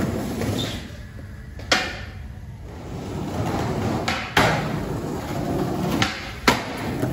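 Skateboard wheels rolling over brick paving, broken by sharp clacks of the board. The loudest comes a little after the middle, right after a smaller pop: a trick popped and landed. Two more clacks follow near the end.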